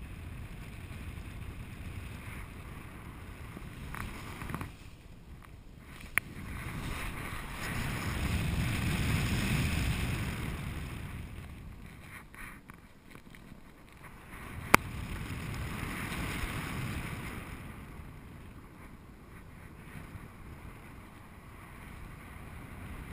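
Wind rushing over the microphone of a paraglider pilot's harness-mounted camera in flight. It swells and fades twice, with two sharp clicks in between.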